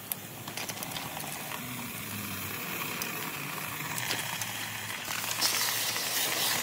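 Hot aluminum castings in tin-can flasks being quenched in a bucket of water, the water hissing and sizzling into steam. The hiss builds and is loudest near the end, with a few sharp clicks.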